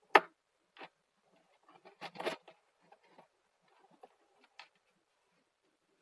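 Stainless steel dog tags handled on a gift box: a sharp tap as a tag is set down, then a short cluster of clinks and rustling from the tags and ball chain about two seconds in, and a few faint clicks.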